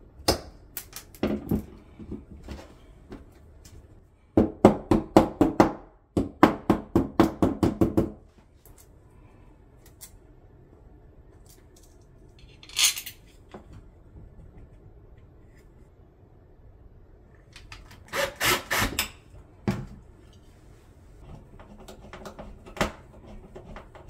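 Hand tool tapping at wall anchors in a tiled wall: several quick runs of sharp taps, about five a second, with a short scraping rustle near the middle.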